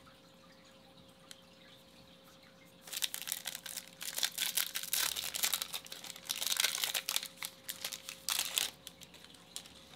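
A 2021 Topps Chrome baseball card pack's wrapper being torn open and crinkled by hand. It is a dense run of crackling rustles that starts about three seconds in, lasts around six seconds and stops near the end.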